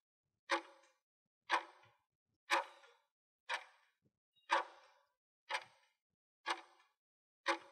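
Clock-tick sound effect of a quiz countdown timer: short ticks, one each second, eight in all.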